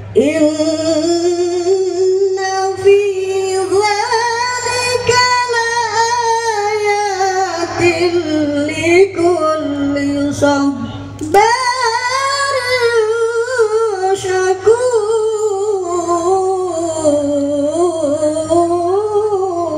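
A woman reciting the Quran in the melodic tilawah style, amplified through a stage PA. She holds one long ornamented phrase, takes a brief breath about eleven seconds in, then sings another long phrase.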